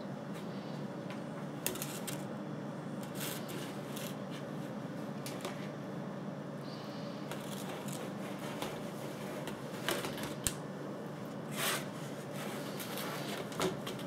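Scattered light clicks, scratches and scrapes of a kitten moving about inside an upturned plastic laundry basket on a tile floor, over a steady low hum. A few sharper knocks stand out about two seconds in and again in the last four seconds.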